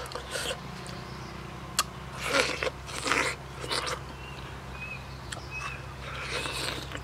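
Ripe mango being peeled by hand and bitten into: a few short bursts of peeling and biting between about two and four seconds in, with scattered small clicks.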